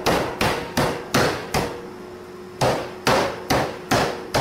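Meat cleaver chopping through a rack of ribs on a plastic cutting board: quick, even strokes about two and a half a second, five in a row, a pause of about a second, then five more.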